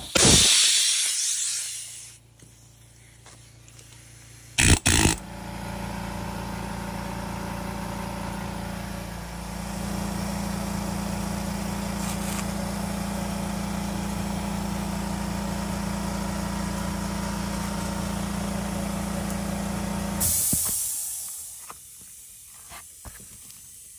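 Husky 4.6-gallon, 1 HP air compressor and blow gun: a loud hiss of air at the start, two short blasts of air about five seconds in, then the compressor motor starts and runs steadily for about fifteen seconds. It shuts off near the end with a burst of hissing air as the unloader valve vents.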